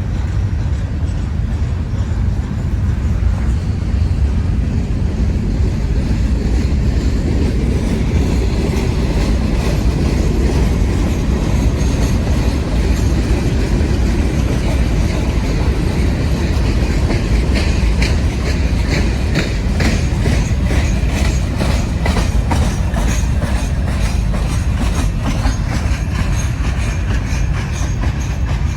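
Norfolk Southern freight train of empty gondola cars rolling past, a steady loud rumble, with the wheels clacking over the rail joints more sharply from about two-thirds of the way through. A second freight train, an intermodal, is rolling by on the adjacent track.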